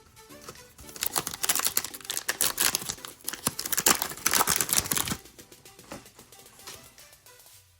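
A trading-card pack's plastic wrapper crinkling and tearing as the pack is ripped open, a dense run of crackles lasting about four seconds from a second in, then handling of the cards.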